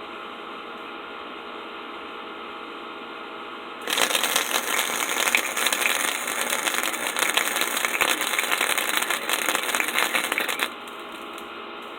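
A dense crackling, rattling noise starts about four seconds in and lasts about seven seconds, then stops. A steady hum runs underneath throughout.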